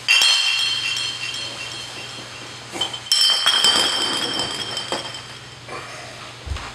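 Bright, glassy chime ringing out sharply twice, about three seconds apart, each strike sustaining a few high tones that fade over a couple of seconds, followed by a few soft knocks near the end.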